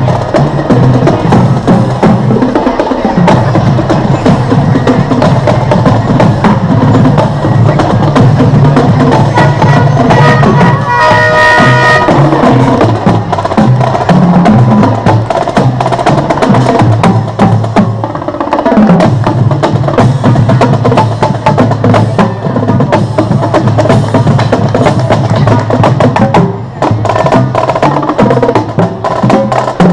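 Marching band drum line playing a cadence while passing close by, with dense, rapid stick clicks and drum beats. A short held horn-like tone sounds about ten seconds in.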